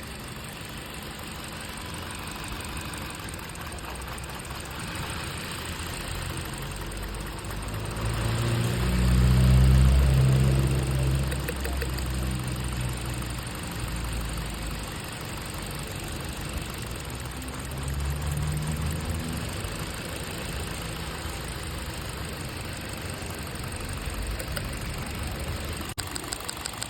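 A 2015 Hyundai Elantra's four-cylinder engine running with a misfire: cylinder 3 is not firing. It runs steadily, swelling louder about eight to eleven seconds in and again briefly near nineteen seconds.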